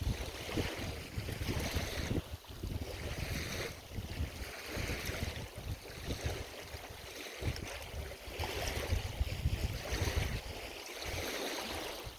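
Wind buffeting the microphone with a gusty low rumble, while lake waves wash in and draw back every couple of seconds.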